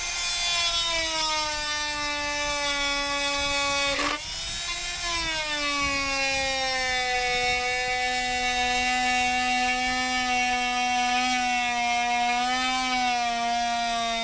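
Electric drill boring through the house wall with a dull bit, its motor whining and slowly dropping in pitch as it labours under load. It lets off briefly about four seconds in, then bears down again.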